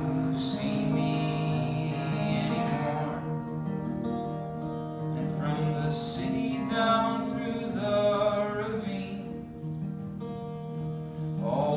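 Acoustic guitar playing steadily, with a man's voice singing over it in two phrases, one near the start and one around the middle.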